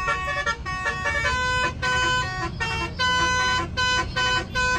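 A bus's multi-tone musical "telolet" air horn playing a quick, repeating tune of short clear notes that step between pitches, over the low rumble of a running engine.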